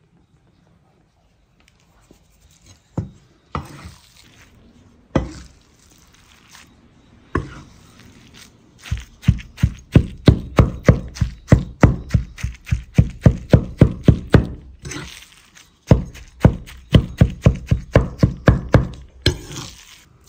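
Knife chopping on a wooden cutting board: a few single chops, then a steady run of rapid chops at about three to four a second, a short pause, and another run.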